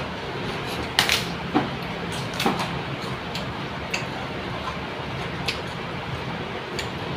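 Crisp snapping and crackling as fresh bok choy leaves are torn apart by hand, a few sharp cracks about a second in and again around two and a half seconds, fewer and softer later, over a steady background hum.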